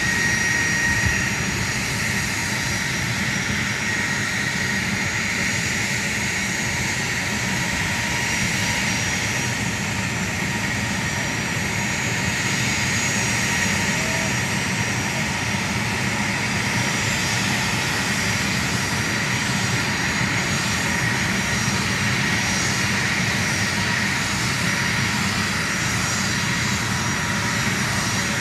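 A-10C Thunderbolt II's twin TF34 turbofan engines running steadily, a high whine over an even roar.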